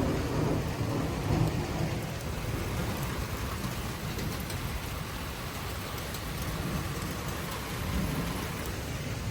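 Rain falling steadily in a thunderstorm, with a low rumble of thunder underneath that swells near the start and again near the end.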